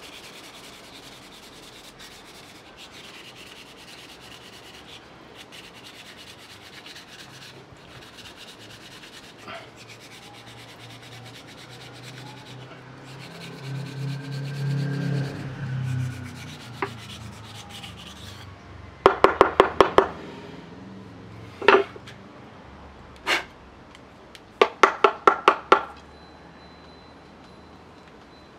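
Quick, fine rubbing strokes on a bamboo rod section being worked by hand. About two-thirds of the way in come several quick runs of sharp knocks, which are the loudest sounds.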